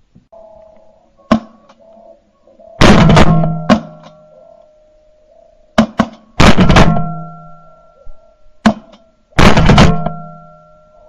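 A shotgun fired three times, about three and a half seconds apart. Each blast is very loud and dies away over most of a second, with shorter, sharp clicks in between.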